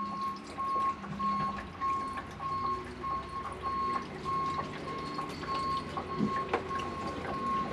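Electronic beeping at one steady pitch, short beeps repeating about three times a second, over a low steady hum.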